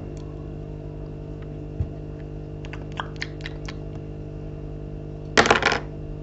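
Plastic Lego minifigures and bricks clicking and tapping as they are handled and set down on a Lego baseplate: scattered light clicks, then a louder brief clatter about five and a half seconds in, over a steady low hum.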